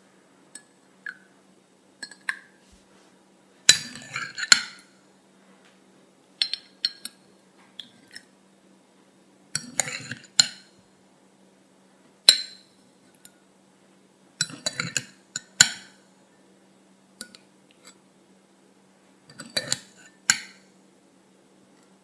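A spoon clinking against a glass bowl and a tall glass as tapioca pearls are scooped and dropped into milk tea. The clinks come in about six short clusters a few seconds apart, some with a soft low thud.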